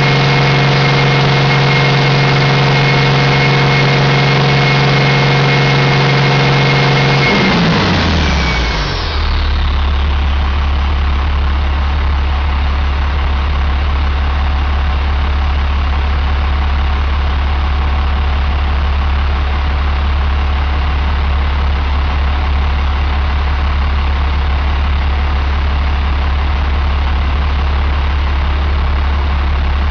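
International DT466E inline-six turbo diesel running at raised speed with a high steady whine. About eight seconds in, its speed falls off and the whine fades. It then settles into a steady low idle.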